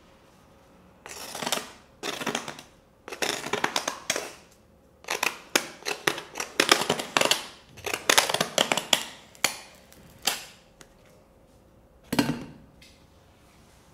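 Crisp crust of a baguette crackling and crunching in a series of short bursts as it is handled and scraped with a green plastic stick.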